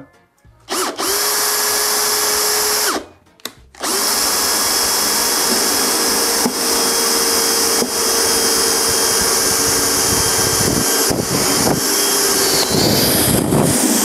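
Electric drill boring a hole through the wall of a trash can. It runs steadily for about two seconds, stops, gives a short blip, then runs again steadily for about ten seconds before stopping near the end.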